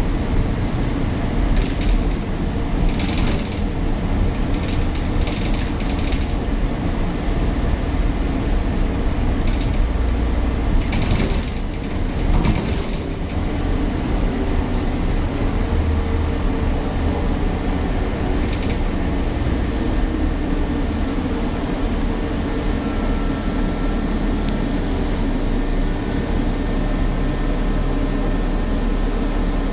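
Inside an old bus while it is driving: a steady low engine and road rumble with creaking and rattling from the body and fittings. Short clatters come at intervals, grouped in the first half and once more near the end.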